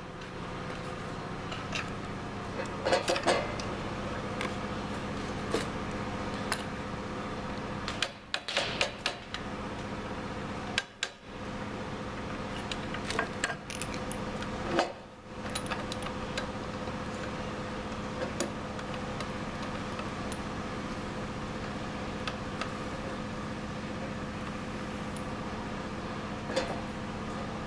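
Scattered metallic clinks and taps of bolts and tools being handled while bolts are fitted to a pneumatic tyre-changer assist arm, with clusters about three seconds in and around the middle, over a steady machine hum.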